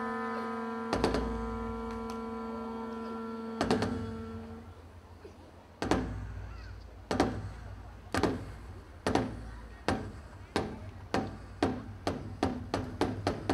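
A long horn holds one steady note for the first four seconds or so, then stops. A large Korean barrel drum is struck with sticks: single heavy strokes a few seconds apart at first, coming steadily faster until they are a few a second near the end.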